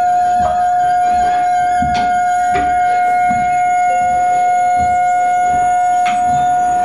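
Free-improvised experimental music: a loud, steady, pure high tone held without a break, with fainter steady tones above it and a lower tone joining about four seconds in. A few sharp clicks are scattered through it.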